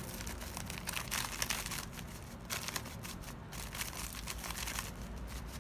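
Plastic spice packet crinkling and rustling in the hands as chicken masala is shaken out of it, in short irregular crackles.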